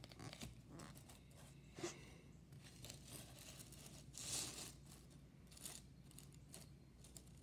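Near silence broken by a few faint taps and scrapes of map puzzle pieces being handled and slid on a wooden floor, with a brief rustle about halfway through.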